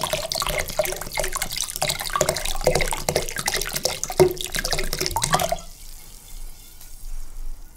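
Sparkling water poured in a stream from a glass bottle into a glass bowl of apple juice, splashing steadily and stopping suddenly about five and a half seconds in; the liquid fizzes faintly after.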